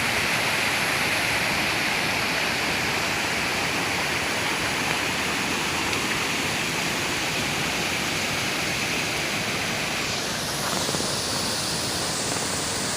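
Woodland stream cascading downhill, a steady rushing of water; the tone shifts slightly about ten seconds in.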